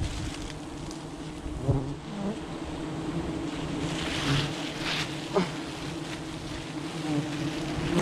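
Swarm of disturbed wild honeybees buzzing around their opened nest: a steady, low drone of many wingbeats, with a single falling-pitch buzz about five seconds in.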